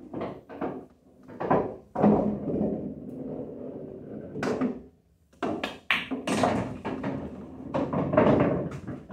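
Pool shots played with a Predator P3 cue: the cue tip strikes the cue ball, then balls clack together, knock off the cushions and roll across the cloth. There is a quick cluster of sharp knocks about five and a half to six seconds in.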